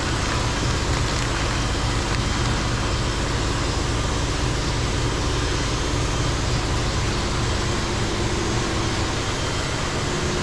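Steady hum of shop machinery running, with a few constant low tones under an even noise and no distinct knocks or changes.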